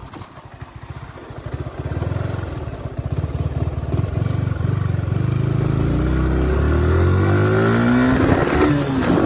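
Yamaha R15 sport bike's single-cylinder engine accelerating while riding, its pitch rising steadily through the second half, with a brief drop near the end as it shifts up before climbing again.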